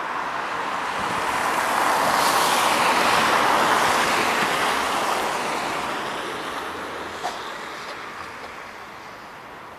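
A road vehicle passing by, its hissing tyre and road noise swelling to a peak about three seconds in and then fading away, with one small click near the end.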